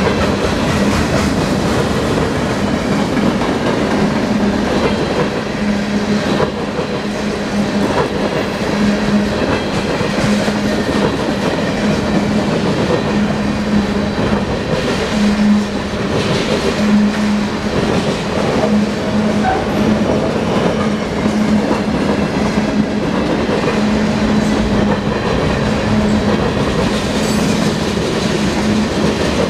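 Cars of a Union Pacific manifest freight train, tank cars and covered hoppers, rolling steadily past: a loud, continuous rumble of steel wheels on rail with a few sharp clanks and a low hum that comes and goes.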